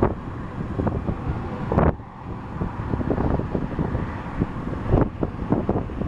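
Wind buffeting the microphone outdoors, a low rushing rumble with irregular sharp gusty bursts, the strongest just before two seconds in and again about five seconds in.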